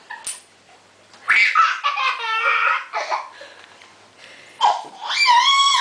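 A toddler laughing in quick bursts, then a high-pitched squeal near the end.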